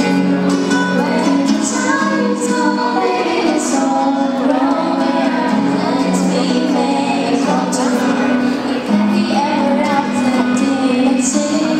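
A girl singing into a microphone, accompanied by a strummed acoustic guitar.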